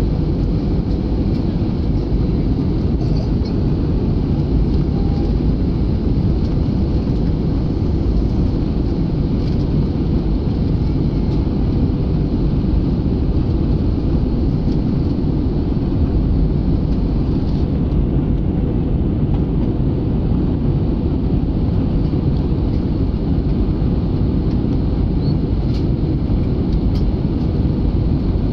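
Steady cabin noise of a jet airliner in flight: an even, low rumble of engines and airflow with a faint steady hum, unchanging throughout.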